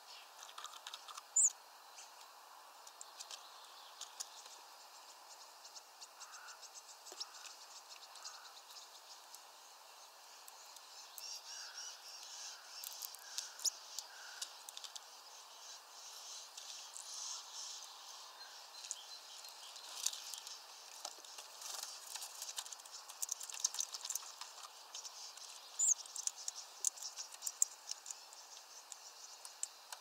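Hawfinches at a feeder: scattered sharp ticks and clicks with a few short, high call notes, one about a second and a half in and a couple near the end, over faint background birdsong.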